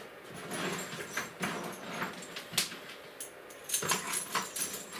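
Cables and cable ties being handled and packed into an aluminium case: scattered rustles, clicks and light knocks at uneven intervals.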